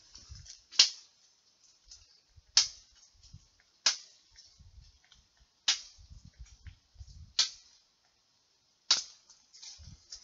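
Machete chopping into wood or branches: six sharp strikes about every one and a half seconds.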